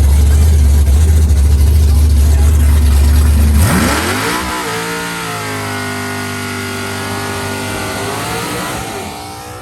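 Drag-race cars at the starting line. A loud, steady low engine drone, then about three and a half seconds in a sudden launch, with the engine note climbing quickly in pitch and growing fainter as the cars pull away down the track.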